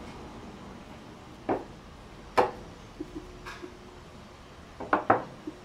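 Sharp knocks and clicks from handling a dial bore gauge and a clear acrylic engine cylinder while measuring the 48 mm bore. There is one knock about one and a half seconds in and a louder one a second later, then a few light ticks and a quick double knock near the end.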